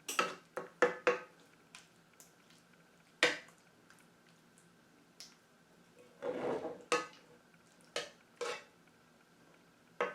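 Dishes and utensils clinking and knocking: a scattering of sharp clinks and clunks, with a brief scraping rustle a little past halfway.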